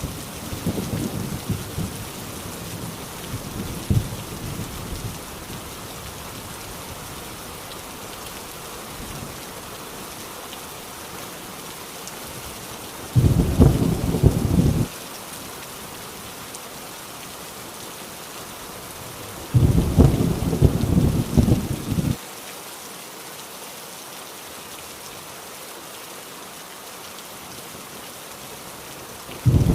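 Heavy rain falling steadily, with low thunder rumbles. One dies away over the first few seconds, and two more of about two seconds each, about 13 and 20 seconds in, start and stop abruptly. Another begins right at the end.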